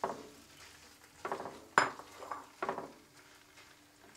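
Raw chicken strips being tipped from a bowl into a pan of foaming melted butter and pushed about with a spatula: four knocks and scrapes of the bowl and spatula against the pan in the first three seconds, over a faint sizzle of the butter.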